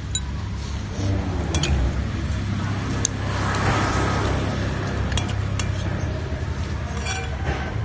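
Spoons clinking sharply against dishes several times while people eat soup, over a steady low hum.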